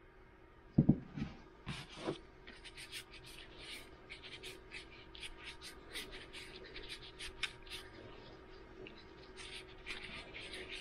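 Gloved hands rubbing boiled linseed oil into a wooden hammer handle: a run of short, quick scratchy rubbing strokes, after a single thump about a second in.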